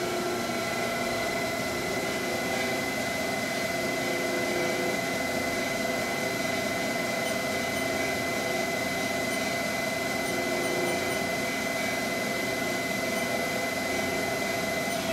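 Haas SL-40T CNC lathe spindle turning the 15-inch chuck at a steady speed: a constant whine from the spindle drive that holds one pitch.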